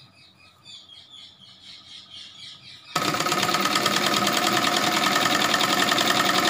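Sewing machine starting about three seconds in and running steadily at speed, stitching a waistband onto a palazzo.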